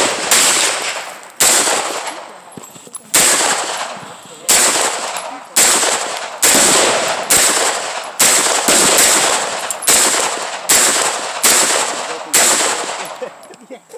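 Sig Sauer MPX 9mm pistol firing single shots at an uneven pace, about a dozen in all, one every half second to two seconds. Each crack trails off in a long echo.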